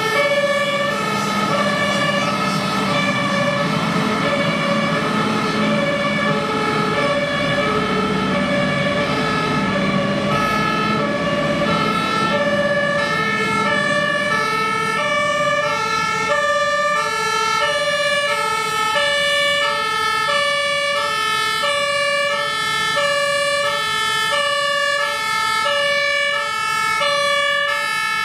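Two-tone emergency siren of a Rosenbauer Panther 8x8 airport crash tender, switching steadily back and forth between two pitches. The truck's engine noise runs under it in the first half.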